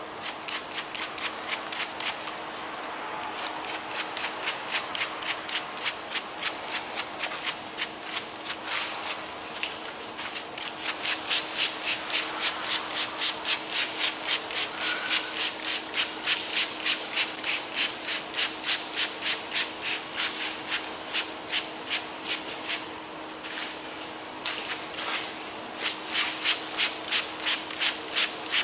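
Small hand pump spray bottle spraying Cooper's chemical paint stripper onto a car hood in quick repeated squirts, about three a second, with short pauses a couple of seconds in and again near the end.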